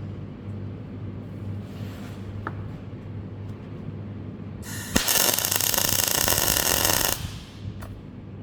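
Steady low hum, then about five seconds in an arc weld is struck: a loud, even hiss lasting about two and a half seconds that cuts off abruptly as the weld stops.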